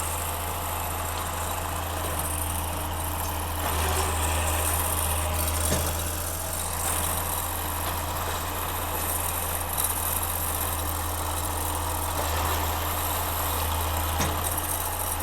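A tractor and small conventional square baler running steadily in the field, a constant low engine drone that swells a little twice. A couple of faint sharp knocks come from the machinery.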